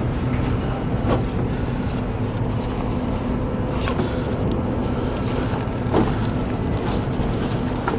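Steady low mechanical hum with a few faint clicks and knocks, like handling gear; no shots are fired.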